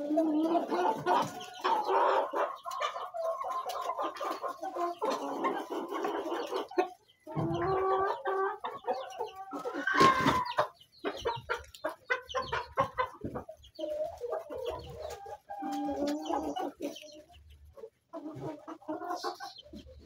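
A flock of Sasso chickens, roosters and hens, clucking and calling almost without pause. One louder call comes about ten seconds in.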